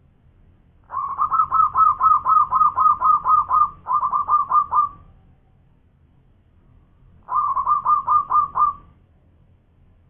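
Zebra dove singing its cooing song: a fast run of short, clipped coos, about five a second, lasting some four seconds, then a second shorter run of about seven notes.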